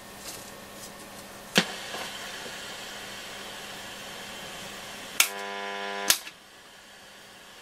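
Nordmende Transita transistor radio on FM: a click from the switches, then faint hiss from the speaker while the tuning dial is turned, with no station coming in, a sign that the FM section is dead. Near the end a second click brings a buzzing tone for about a second, cut off by a third click.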